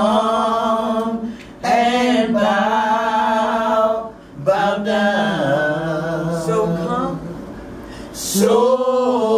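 Two women singing a slow worship chorus a cappella, drawing out long notes with a wavering vibrato. The singing comes in a few long phrases with short breaks for breath between them.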